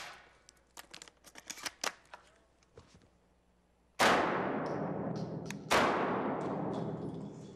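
Two shots from a Beretta 12-gauge semi-automatic shotgun, about a second and a half apart: first a slug, then a waterfowl shotshell. Each shot rings out in a long echo on an indoor range. Before the shots there are a few faint clicks of the gun being handled.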